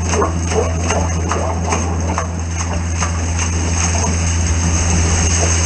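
Water gushing from a drain pipe into a manhole chamber over a steady low engine hum, with irregular knocks during the first three seconds.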